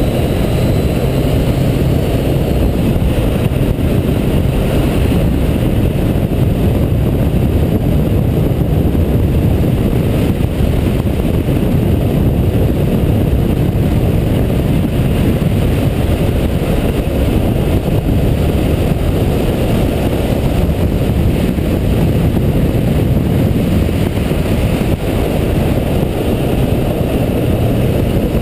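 Yamaha MT-09 Tracer motorcycle under way at speed: its three-cylinder engine running under heavy wind rush on the microphone, a loud, steady low rumble.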